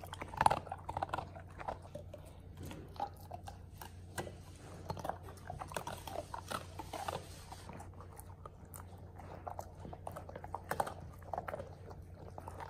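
Two German Shepherds chewing pieces of crunchy dog biscuit and licking crumbs off a rug: quiet, irregular crunches and smacks over a faint steady low hum.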